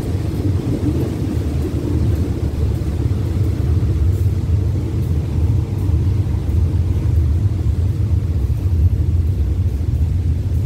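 Ordinary passenger train's carriage running steadily along the track, a continuous low rumble heard at an open window.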